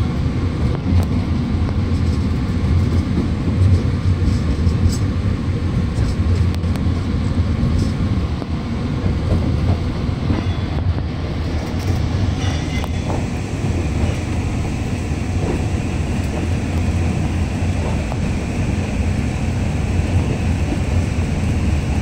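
Alishan Forest Railway narrow-gauge passenger train running, heard from inside the carriage as a steady low rumble of wheels on rails. A couple of brief, faint high squeals come about ten and twelve seconds in.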